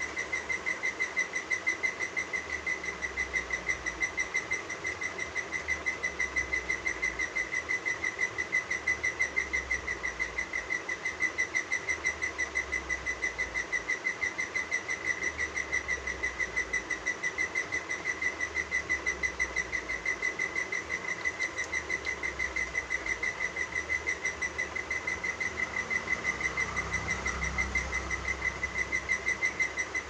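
Parakeet chick begging while being hand-fed: a steady run of short, high chirps at one pitch, about three a second.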